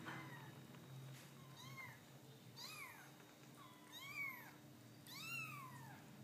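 Young kittens mewing: five short, high-pitched mews about a second apart, each rising then falling in pitch.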